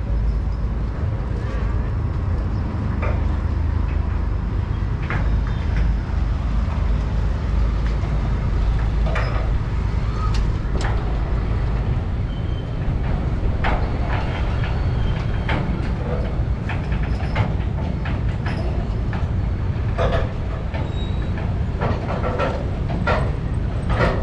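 Busy street ambience: a steady low rumble with many scattered clicks and clatter, and brief snatches of distant voices near the end.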